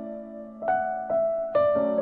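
Slow, soft piano background music: single notes struck about every half second over a sustained chord, each ringing and fading.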